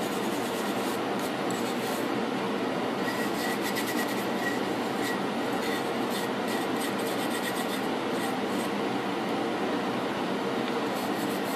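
A brush scrubbing a paint-stripped lathe part over a bucket of soapy water, in short spells of quick rasping strokes. Under it, a propane torpedo heater runs with a steady rushing noise.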